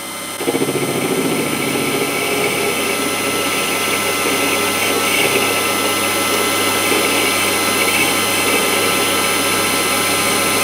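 Warco WM180 mini lathe running and taking a light 0.25 mm turning cut along a 12L14 steel bar, a steady machining noise from the motor, chuck and tool cutting the steel. It gets louder about half a second in and then holds steady.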